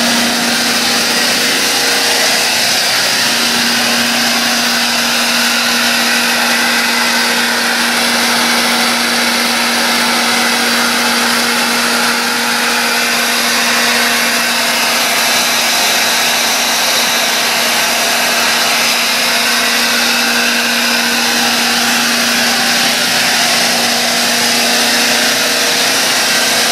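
Mattei C300MV 75 HP rotary vane air compressor running steadily: a loud, even rush of air and machine noise with a steady hum underneath.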